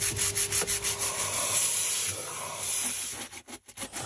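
Stiff-bristled brush scrubbing a foam-covered, mud-caked tractor cab surface in quick back-and-forth strokes, about five a second at first, then running together, with a few short breaks near the end.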